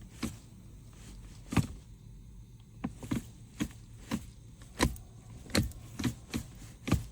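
Gear selector lever of a BMW E60's automatic transmission being tapped repeatedly in manual mode: about ten sharp, short clicks, half a second to a second apart, over a faint low hum.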